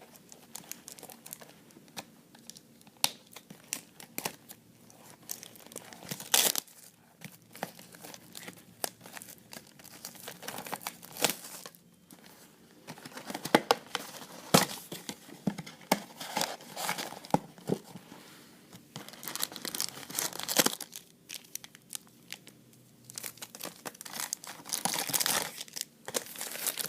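Plastic wrapping being torn and crinkled, with packaging rustling, as a sealed trading card booster box is unwrapped and opened. The crackling is irregular, with louder flurries of tearing several times.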